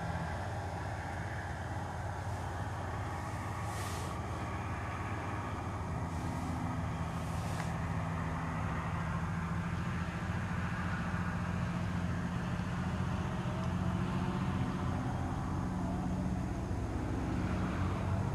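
A car engine idling with a steady low hum, getting slightly louder toward the end, with brief soft hisses about three and seven seconds in.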